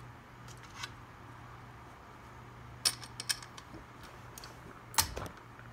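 A few sharp, small metallic clicks and clinks from ceiling fan blade hardware, screws and blade irons, being handled while a blade is fitted. The loudest come about three seconds in and near the end, over a low steady hum.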